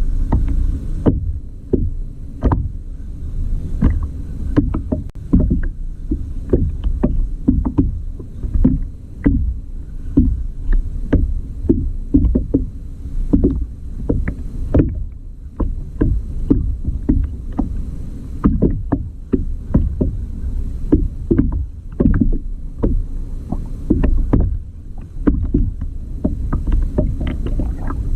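Fishing kayak on the sea: a constant low rumble of water moving against the hull, with many short, irregular knocks and clicks throughout.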